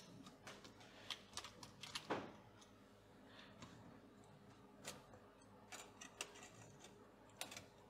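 Faint, scattered clicks and small knocks of a USB drive being plugged into and pulled from a dev board's USB ports one after another, against near silence.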